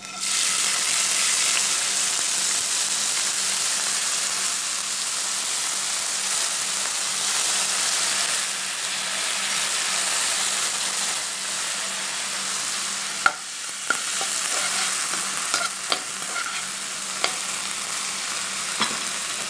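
Chopped red onion sizzling in hot oil in a frying pan, the sizzle starting suddenly as the onion goes in and carrying on steadily. In the second half a few sharp knocks of a utensil against the pan come as the onion is stirred.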